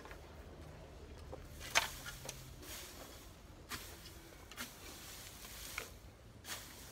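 Long-handled hoe chopping into weedy soil: a handful of sharp, irregular strikes, the loudest a little under two seconds in.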